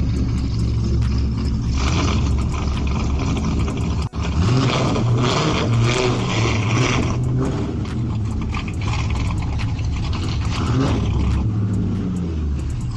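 Corvette C5 Z06's LS6 V8 engine running with a deep, steady exhaust note, with an abrupt cut about four seconds in.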